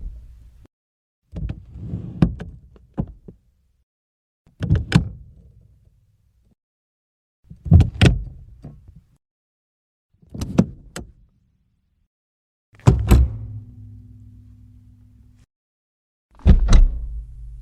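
A series of separate car door and latch sounds: handle and latch clicks with low thuds, one every two or three seconds, with silence between. The last two are followed by a steady low hum lasting a couple of seconds.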